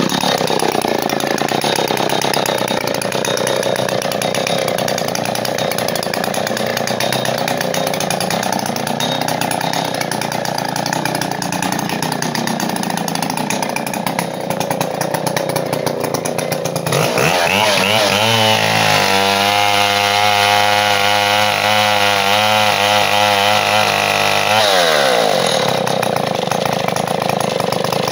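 Stihl Contra Lightning chainsaw's single-cylinder two-stroke engine idling unevenly. About 17 s in it revs up to a steady high speed, holds there for about eight seconds, then drops back to idle.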